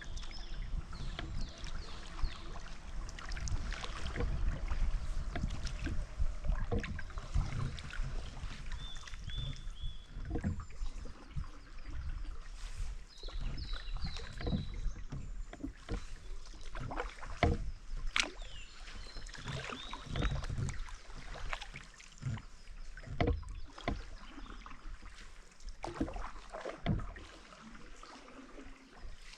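Canoe paddling on calm water: a paddle dipping and pulling through the water with splashes and drips, at an irregular stroke rhythm.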